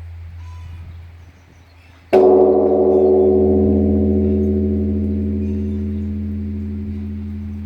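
Korean Buddhist temple bell struck once about two seconds in, then ringing on with many overlapping tones in a long, slow fade.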